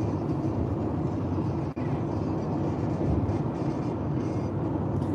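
Steady low rumble of road and engine noise inside a moving car's cabin as it cruises along an expressway, with a momentary dropout a little under two seconds in.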